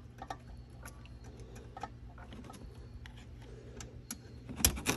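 Scattered small clicks and taps of plastic cable plugs and wiring being handled and fitted to a car stereo head unit, with a louder cluster of knocks near the end.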